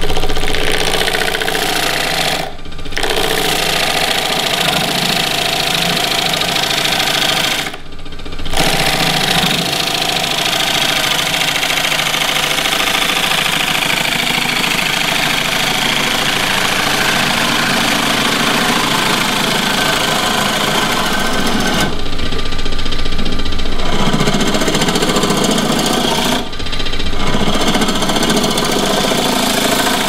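Turning tool cutting the outside of a green walnut bowl spinning on a wood lathe: a steady hiss and rasp of wet shavings peeling off, with the lathe's motor running underneath. The cut lifts off briefly a few times and resumes.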